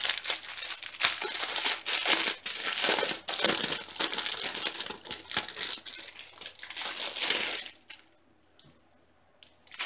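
Clear plastic packaging holding small bags of diamond painting drills crinkling as it is handled. The crinkling stops at about eight seconds.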